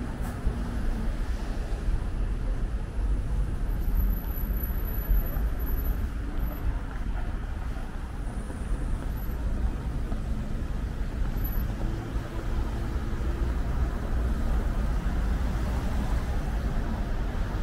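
City road traffic: a steady low rumble of passing cars and buses, with no single sound standing out.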